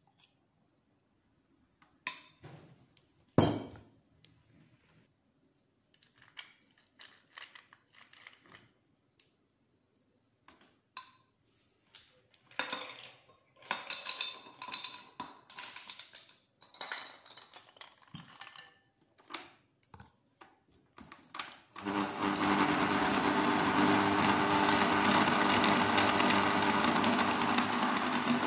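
A spoon clinks and scrapes against a Nutella jar and a glass blender jug, with one sharp knock near the start. Midway, ice cubes clink as they drop into the jug. About 22 s in, a countertop blender starts and runs steadily, crushing the ice with milk and banana.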